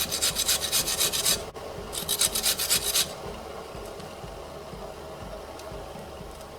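Raw turmeric root grated on a hand grater: two quick runs of rapid rasping strokes, the second stopping about three seconds in, leaving only a faint steady hiss.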